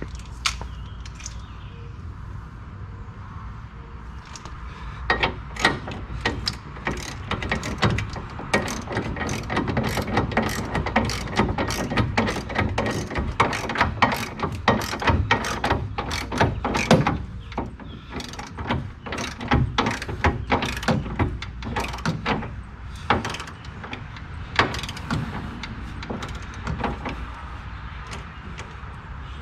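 Ratchet wrench clicking in irregular runs while car subframe bolts are tightened by hand. The clicks are densest in the middle and thin out toward the end.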